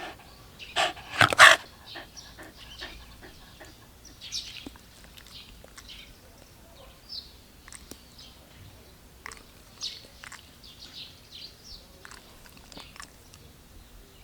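A Shiba Inu barking, two loud barks about a second in, followed by fainter scattered short sounds.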